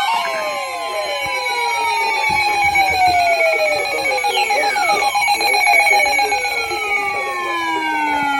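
Emergency Alert System broadcast tones from several stations overlapping: the steady two-tone attention signal with chirping data bursts, and many copies of the tones sliding downward in pitch.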